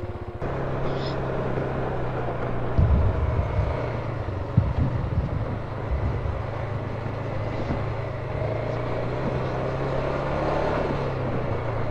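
A vehicle's engine running steadily at low speed on a rough dirt trail, with a few low thumps and knocks from the vehicle jolting over bumps a few seconds in.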